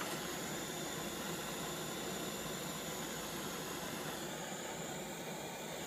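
Handheld gas torch burning with a steady, even hiss.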